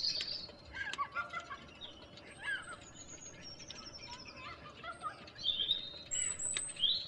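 Several birds singing and calling over a quiet outdoor background: scattered short chirps, quick trills and rising and falling whistles.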